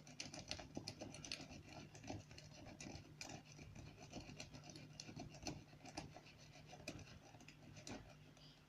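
Metal bogota rake scraping in and out of a CISA padlock's keyway, faint irregular clicks and scratches as it rakes over the pin stack under light tension. The lock is held in a false set by its spool pins.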